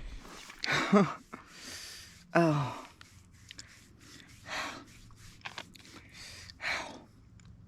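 A woman's pained vocal sounds: a groan about a second in, a falling "oh", then several heavy, breathy exhalations, as she reacts to a fresh injury.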